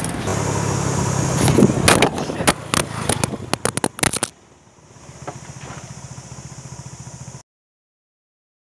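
An engine running steadily close by, with sharp crackling and scraping clicks over it, cut off suddenly about four seconds in. A faint low hum follows, then the sound stops dead.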